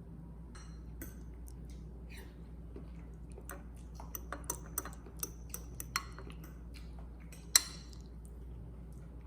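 A scatter of small clicks and clinks of kitchenware being handled, over a steady low hum. The clicks come irregularly through the middle, with one sharper, louder clink near the end.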